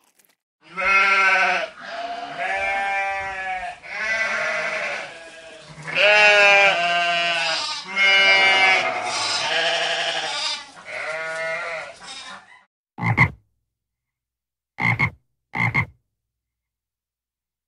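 An animal calling over and over, about seven loud calls of a second or two each with a wavering pitch. These give way near the end to three short, sharp calls.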